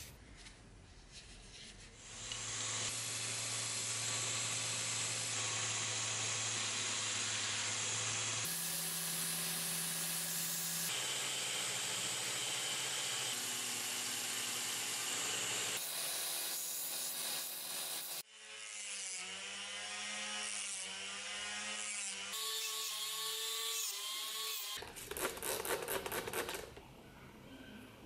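Belt grinder running as a brass knife guard is held against the belt, in several short clips. Near the end a tool with a wavering pitch takes over, then comes a short burst of rapid taps.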